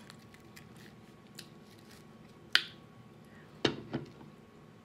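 A hard taco shell crunched close to the microphone: a sharp crack about two and a half seconds in, then two crunchy bites a second later.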